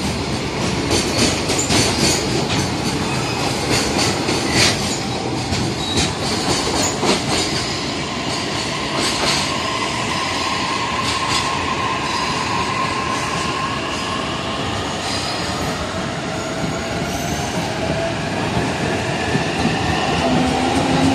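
A container freight train's wagons run past on steel wheels: a steady rumble with wheels clicking over rail joints and squealing, the clicks thinning out about halfway through as the train moves away. In the second half, a commuter electric train on the next track adds an electric motor whine that rises slowly in pitch as it gets under way.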